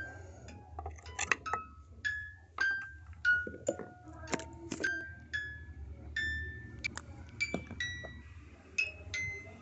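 Background music: a tinkling melody of single bell-like notes at changing pitches, about two a second, over a low steady hum.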